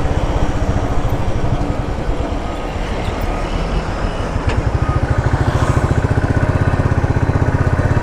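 Motorcycle engine running at low road speed, heard from the rider's position; about halfway through its firing pulses turn into an even, rapid beat.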